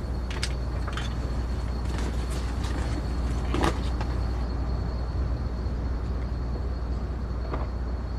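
Steady low rumble of a car, with a few short clicks and one louder knock about three and a half seconds in, like a car door or handle.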